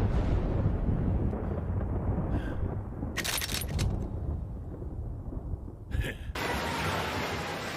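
Anime battle sound effects: a steady low rumble, broken about three seconds in by a quick run of sharp cracks and again by a short burst near six seconds.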